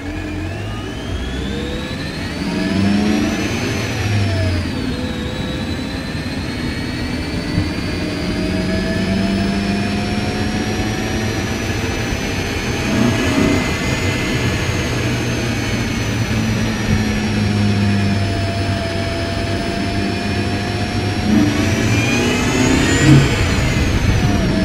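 Mercedes M271 1.8-litre supercharged four-cylinder engine pulling the car up through the gears, a high supercharger whine rising with the revs and dropping at each gearchange. The whine climbs over the first few seconds, falls about five seconds in, builds slowly again to a peak midway, eases off, then rises once more and drops near the end.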